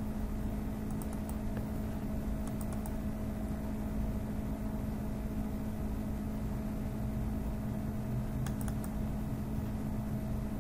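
Steady low hum, with a few faint computer mouse clicks: a couple about a second in and a quick group near the end.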